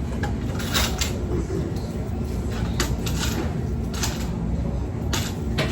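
Steady low rumble of an idling car heard inside the cabin, with about half a dozen short clicks and knocks scattered through it.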